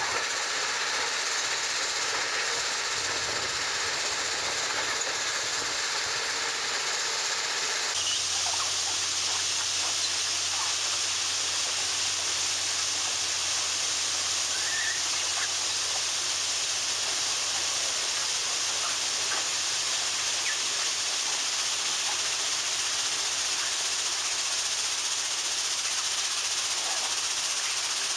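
Loram shoulder ballast cleaner working on the track: a steady mechanical hissing, rushing noise from the machine as it digs out and screens ballast. The sound shifts abruptly about eight seconds in, after which a steady low hum runs beneath the hiss.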